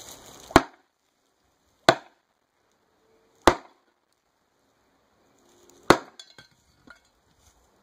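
Four sword slashes into a shield: an M-Tech Defender Extreme, a 440 stainless steel blade, chopping into half-inch wood laminated with two layers of t-shirt fabric. Each strike is a single sharp chop, the four spaced unevenly.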